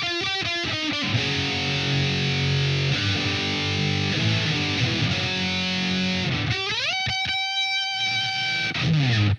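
Fender Stratocaster electric guitar played through an effects pedalboard: quick repeated notes, then sustained chords. About six and a half seconds in, the pitch slides upward into a single held note.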